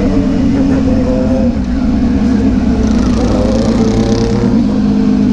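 Motorcycle engine running steadily while riding, its pitch drifting slightly up and down, with a hiss swelling around the middle.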